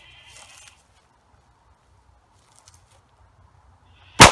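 A single shot from a Glock 19 9mm pistol near the end, sharp and loud, starting a ringing echo.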